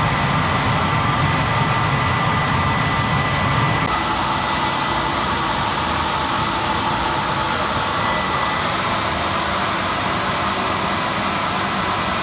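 Three-stage vacuum-motor blower running on high, forcing air through a cyclone wood pellet burner and blasting the leftover burning charcoal out of its discharge tube: a steady rush of air with a thin, high motor whine. The sound turns brighter about four seconds in.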